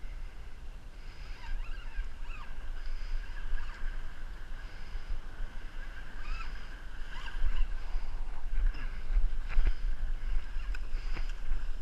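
Sea water washing against breakwater rocks, with wind rumbling on the microphone, while a spinning reel is cranked to bring in a hooked fish. There are a few sharp clicks in the last few seconds.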